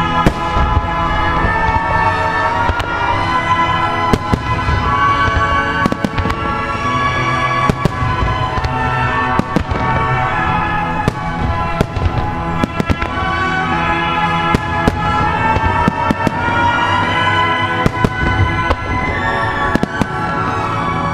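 Fireworks shells bursting with frequent sharp bangs over loud music played through outdoor loudspeakers, the show's music and the explosions timed together.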